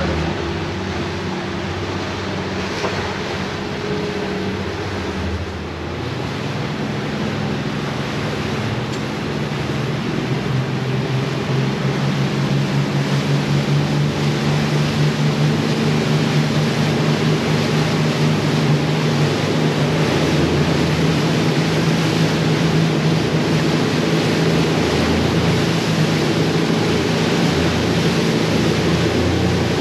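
Twin outboard motors running a fishing boat at speed, getting louder over the first dozen seconds as the boat picks up speed and then holding steady. Rushing wind and water from the hull and wake run under the engine.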